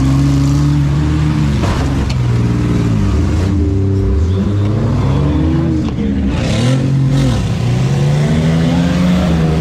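A van's engine, heard from inside the cab, revving up and down over and over as it is driven hard in a demolition derby, with a few short knocks and a burst of noise from impacts.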